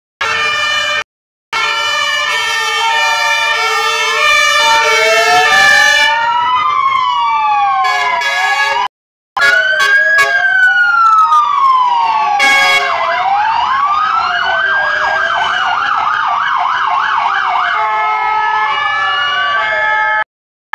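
Several fire engine sirens sounding at once as a column of fire trucks drives past: slow rising-and-falling wails overlap with a stepped two-tone hi-lo siren, and a fast yelping siren joins about two-thirds of the way through. The sound cuts out briefly twice.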